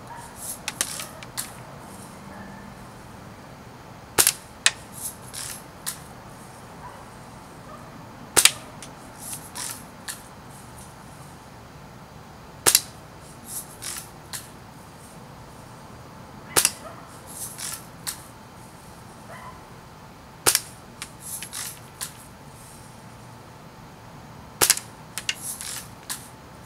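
Spring-powered Buck BB gun firing six times, about every four seconds, each shot a sharp snap followed by a few quieter clicks as the BBs go into a bar of wax.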